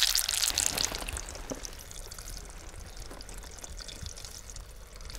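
Shrimp tempura frying in hot oil in a cast-iron pot, crackling and sizzling, fading over the first second or two to a quieter steady hiss with a few faint ticks.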